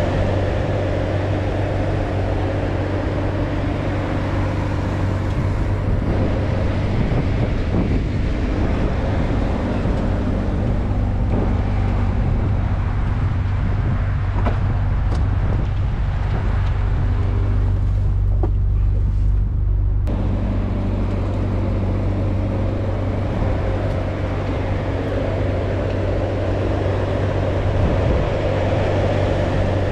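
Ferrari California's 4.3-litre V8 engine running steadily at town-driving speed, with tyre and road noise. The hum drops back for several seconds around the middle, then picks up again about twenty seconds in.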